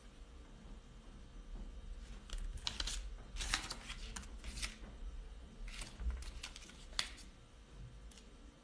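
A string of short rustling and clicking handling noises, in quick clusters through the middle, with one sharp click near the end, over a low steady room hum.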